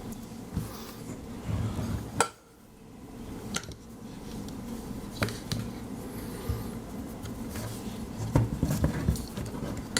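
Metal casings of 3.5-inch hard drives being handled and set down on a hard surface: a low rustle of handling broken by a few sharp clicks and knocks, two of them close together near the end.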